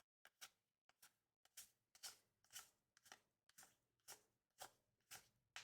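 Faint, regular swishes of trading cards being slid off one another one at a time, about twice a second, as a pack of Upper Deck CHL hockey cards is flipped through.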